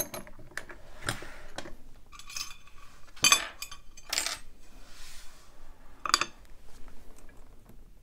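Metal clinks and clatters of a brass Mul-T-Lock euro profile cylinder and steel picking tools being handled: the tools pulled out, the cylinder taken from a vise and set down on an aluminium pin tray. There are several sharp clinks, the loudest about three seconds in.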